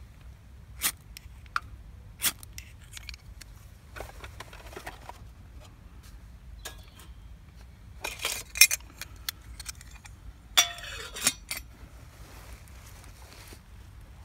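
A ferro rod struck with a few sharp scrapes over a Trangia spirit burner, lighting it. Later comes a run of metallic clinks and rattles as a stainless steel pot is set on a small metal folding stove, the last of them ringing briefly.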